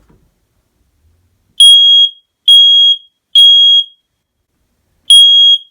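Smoke alarm set off for a test, sounding loud, high-pitched beeps in the temporal-three pattern. Three half-second beeps begin about a second and a half in, then after a short pause the next group starts near the end.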